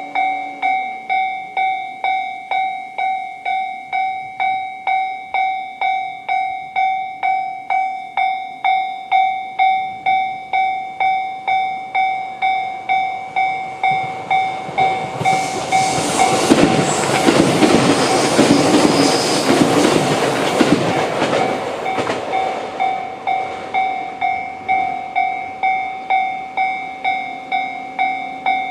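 Japanese level-crossing alarm with the JR standard electronic bell, ringing steadily at a little under two strikes a second. An E653-series electric train passes through the crossing from about 14 to 23 seconds in, its running and rail noise swelling over the bell and then fading.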